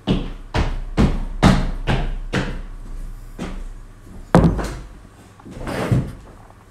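A run of knocks and thuds, about two a second at first, then a few more spaced out.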